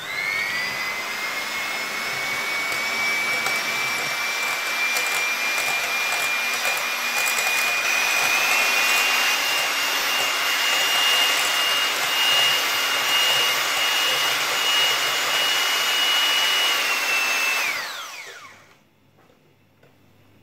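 Electric hand mixer running, its beaters whisking eggs and sugar in a glass bowl until foamy: a steady motor whine that rises as it starts, goes a little higher about halfway through, then winds down and stops near the end.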